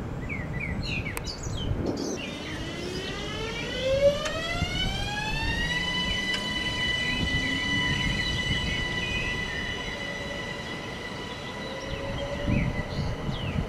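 Electric train's traction drive whining as it accelerates: a multi-tone whine rising steadily in pitch, then levelling off about six seconds in and holding steady. Birds chirp briefly at the start.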